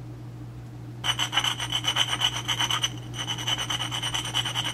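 Steel tooth of a Borg-Warner T90 transmission's first-reverse slider gear rubbed rapidly back and forth on the coarse side of a water-wetted sharpening stone, dressing a chipped tooth smooth. Quick, even scraping strokes, about eight a second, with a thin high ringing note over them, starting about a second in and pausing briefly about two seconds later.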